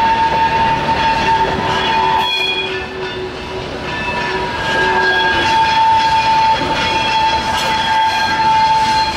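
Vintage two-axle railway passenger coaches rolling slowly past. Their wheels give a steady high squeal held throughout, while other squealing tones come and go over the rumble and clatter of wheels on rail.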